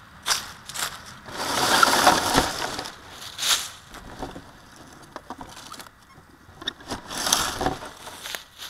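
An RC Slash truck creeping over grass and dry leaves, heard from its onboard camera: crunching, rustling noise in three main bursts, the longest about a second and a half in, with scattered clicks between them.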